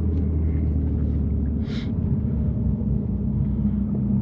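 BMW M3's twin-turbo inline-six, with catless downpipes and an open valved exhaust, running at low revs in a low steady drone while the car crawls through snow. The engine note shifts partway through and rises near the end, and there is a brief high chirp about halfway through.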